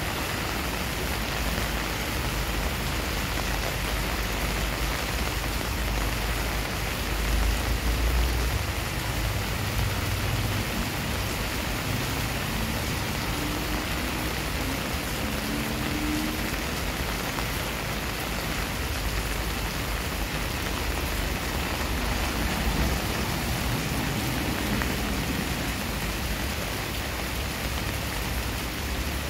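Steady heavy rain falling on a flooded paved driveway and garden plants: a constant hiss of drops and splashes. A low rumble swells briefly about seven seconds in.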